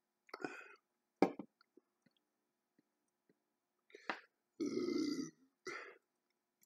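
A man burping: one drawn-out burp of just under a second, about two-thirds of the way in, after a few short breath and mouth sounds.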